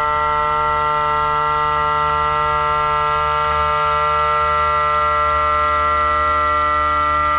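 CNC machine cutting, giving a steady whine at one unchanging pitch, with several overtones over a low rumble.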